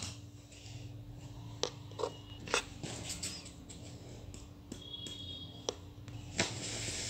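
Handling noise of a small handmade paper notebook: scattered soft taps and clicks of fingers on the pages and foam cover, with a short rustle near the end, over a steady low hum.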